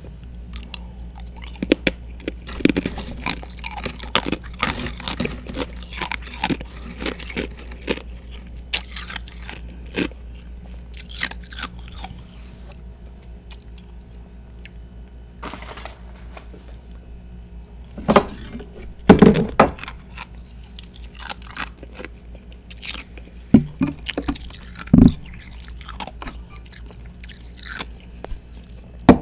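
Ice being bitten and chewed close to the microphone: dense crunching for the first dozen seconds, then a few louder single bites later on, over a steady low hum.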